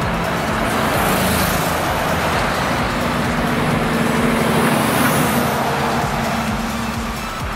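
Articulated trucks driving past one after another, a mix of engine hum and tyre noise. It swells to its loudest about four to five seconds in, as one passes close.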